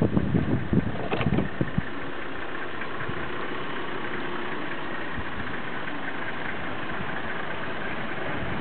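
Safari vehicle's engine idling steadily, with a few low rumbling bumps in the first second and a half.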